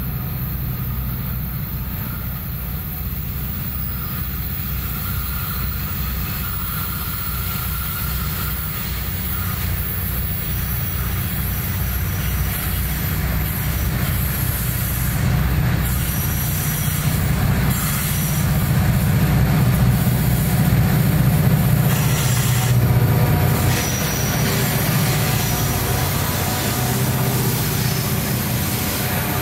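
Diesel-electric freight locomotives approaching and passing close by: a deep, steady engine drone that grows louder as the train nears, loudest about twenty seconds in, with the noise of the train on the rails.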